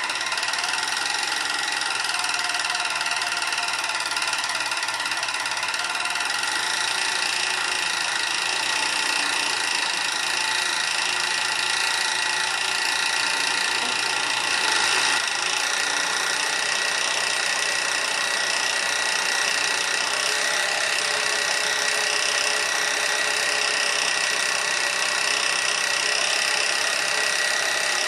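Siruba 737K industrial overlock sewing machine running steadily at high speed, a continuous mechanical whir with several high steady tones, as it overlocks the edge of a knit tape and folds it into a tube. The sound comes in abruptly at the start.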